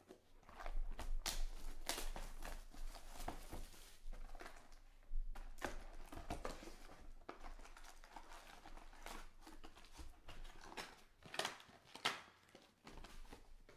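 Crinkling, rustling and tearing as a sealed Panini Select baseball card box is opened by hand. Foil card packs are tipped out onto the table near the end.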